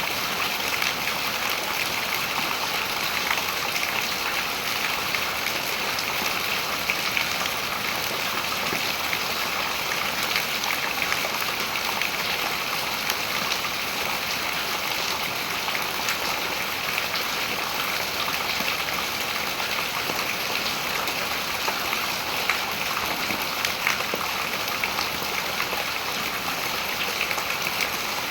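Steady rain falling onto the open water of a reservoir: a continuous hiss of many small drop splashes.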